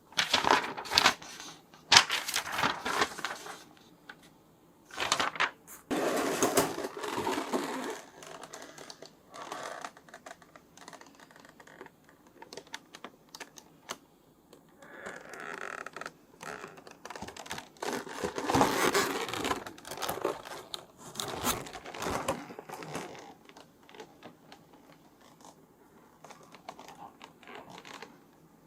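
A toy figure set's packaging being handled and opened by hand: irregular scraping, rustling and clicking, in uneven bursts with quieter gaps.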